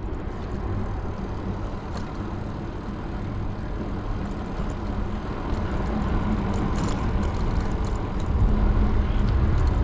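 Steady rumble and road noise of a moving vehicle, growing louder about eight seconds in.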